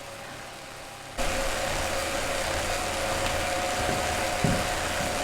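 Indoor bike trainer running with a steady whir and a constant whine, coming in abruptly about a second in after quiet room tone.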